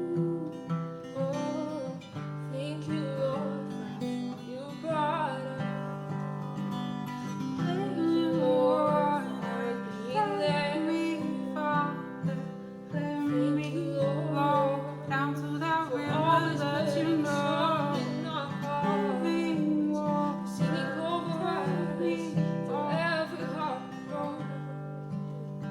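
Acoustic guitar strumming steady chords while a voice sings a melody over it.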